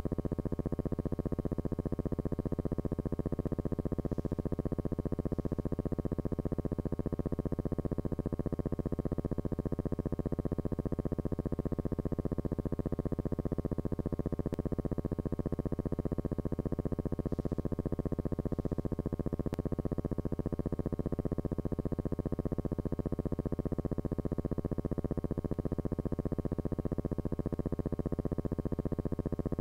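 A steady, unchanging electrical buzz: a low hum with many overtones that holds the same pitch and level throughout, with no aircraft or engine sound.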